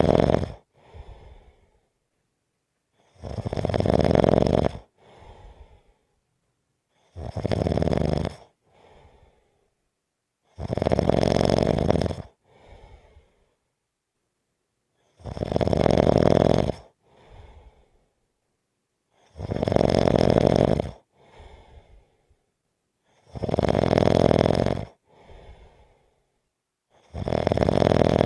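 A person snoring in a slow, even rhythm: a loud snore about every four seconds, each followed by a short, much fainter sound, with silence between.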